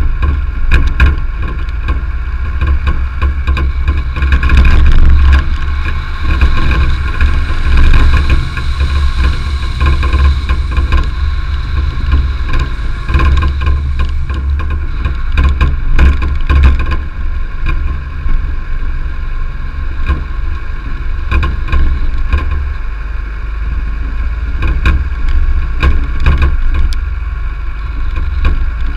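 Car driving along a gravel road: its engine runs steadily under a heavy low rumble from the tyres, with frequent small clicks of stones thrown against the car.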